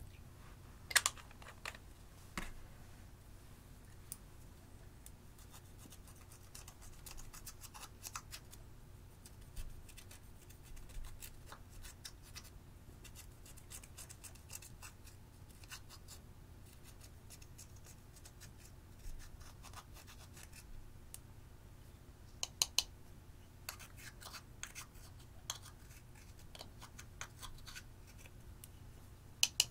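Pressed eyeshadow being scraped and crumbled out of a small plastic palette with a thin stick: a run of dry scratching and little clicks. A few sharper taps stand out, about a second in, twice about three quarters of the way through, and again near the end.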